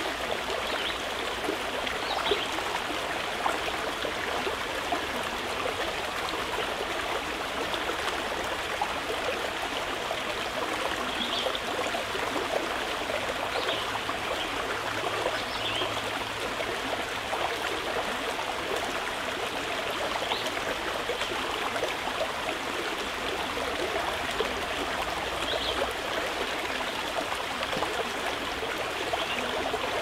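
Running river water, a steady rushing and trickling that goes on without a break.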